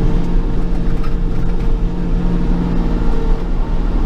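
Bobcat compact tractor's engine running steadily at raised RPM with the PTO engaged, heard from inside the closed cab.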